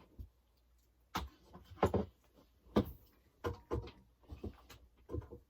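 Irregular knocks and clicks of hard objects being handled, about nine in five seconds, some in quick pairs, while an LED light is being plugged in.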